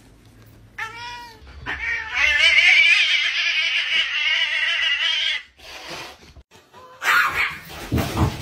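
Cat caterwauling: a short call about a second in, then a long, loud, wavering yowl of about three and a half seconds, the angry warning of a cat swatting at a dog. A burst of noise follows near the end.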